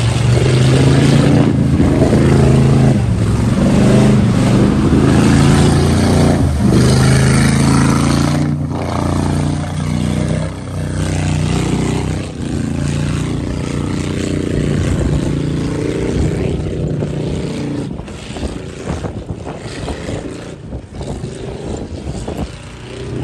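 A modified off-road truck's engine running hard under load while it drives through a muddy river crossing, with water and mud splashing. The engine grows quieter during the last third as the truck pulls away.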